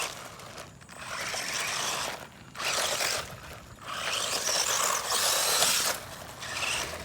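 Traxxas 1/16 Slash electric RC truck driving over loose dirt and gravel, its tyres scrabbling in several bursts of a second or two each as it goes on and off the throttle.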